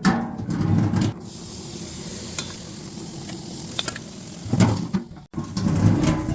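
Marinated chicken pieces sizzling on a hot grill, a steady hiss, with louder, lower-pitched stretches of crackling and handling noise in the first second and again near the end.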